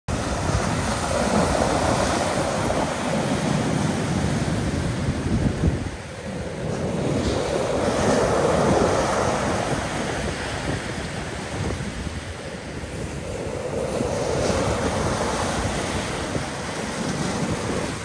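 Rough sea surf breaking on a pebble beach: a continuous wash of breaking waves and foam that swells three times, roughly every six seconds.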